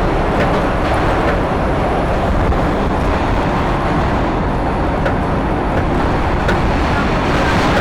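New York City subway train running between stations, heard from inside the car: a loud, steady rumble and rattle of wheels on the rails, with a few faint clicks.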